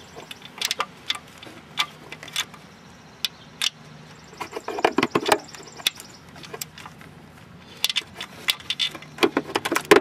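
Ratchet wrench tightening a nut: sharp metallic clicks and clinks in short irregular bursts, busiest around the middle and near the end.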